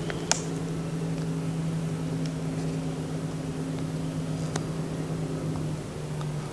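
Distant motorboat engines droning steadily across the lake, dropping slightly in pitch near the end. One sharp click sounds about a third of a second in.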